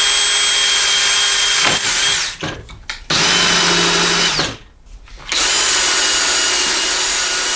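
Electric drill running in three bursts with short pauses between, drilling mounting holes.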